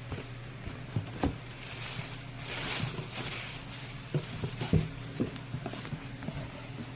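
Light, irregular clicks and knocks of a small plastic clip-on fan being handled, over a steady low hum.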